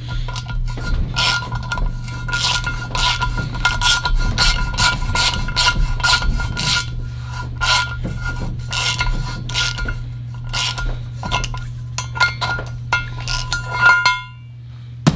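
Hand ratchet clicking in short uneven strokes as it drives a Time-Sert counterbore cutter into the stripped spark plug hole of an aluminium Ford Triton cylinder head, with a faint steady ring under the clicks. Clicks and ring stop together near the end.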